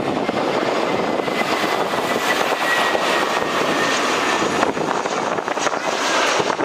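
Airbus A320 jet engines passing low on a landing approach: a steady rushing noise with a faint high whine from the fans.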